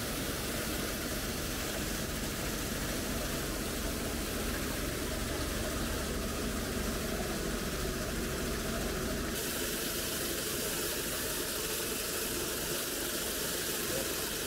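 Engine of soybean harvesting machinery running steadily under an even mechanical rush of noise; the sound shifts abruptly about nine seconds in.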